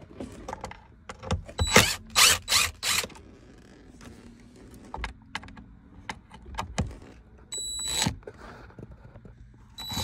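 Cordless drill spinning out the security Torx bolts of a car's gear shifter assembly in short bursts: a cluster of loud bursts about two seconds in and one more about eight seconds in, with clicks and rattles of the tool and bolts in between.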